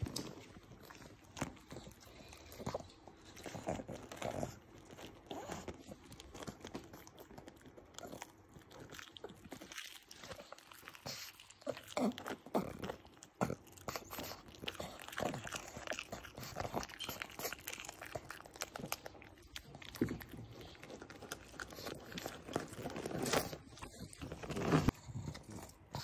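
A pug chewing a chicken nugget, many irregular bites and chews. A louder knock comes near the end.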